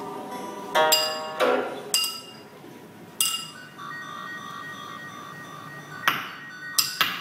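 Live experimental ambient music: sparse sharp plucked and clinking struck notes ring out, one sliding down in pitch, with a faint repeating electronic pattern underneath from about four seconds in.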